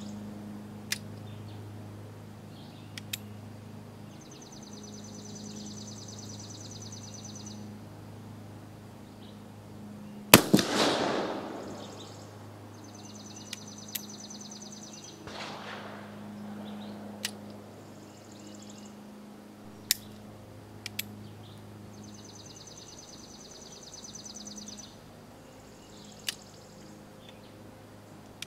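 Uberti Walker .44 black-powder cap-and-ball revolver: a series of sharp hammer clicks and one loud shot about ten seconds in, with a long echo. The caps misfire and go off on a second strike, which the shooter puts down to caps not seating all the way on the nipples.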